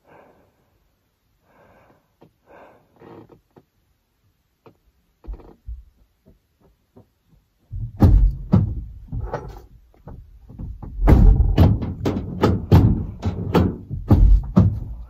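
Quiet car interior, then from about halfway a loud, irregular run of thumps and knocks on the car's body and doors, as someone tries the locked side door and climbs into the back.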